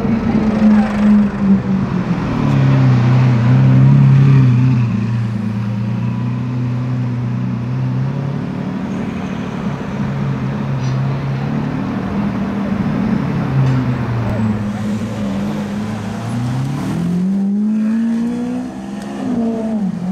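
A car engine running at a low, even note with slight swells in pitch, then revving up in a smooth rising sweep about three-quarters of the way through and dropping back near the end.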